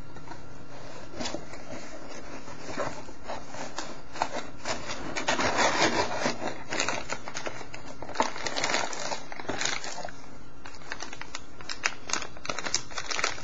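Cardboard packaging scraping and flexing as an inner box tray is pulled out, then clear plastic bags crinkling and crackling as the bagged accessories are handled, with a quick run of crackles near the end.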